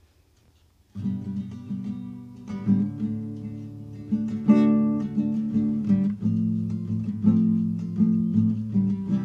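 Acoustic guitar music: chords played on an acoustic guitar, coming in suddenly about a second in after near silence, with repeated plucked notes ringing on.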